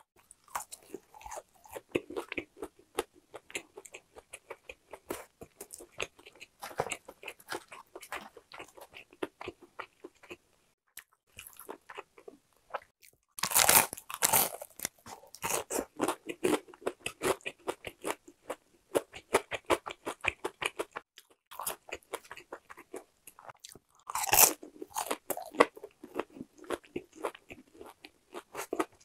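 Crunchy bites and chewing of crispy boneless fried chicken, a steady run of crackling crunches, with two louder bites, one about halfway through and one near the end.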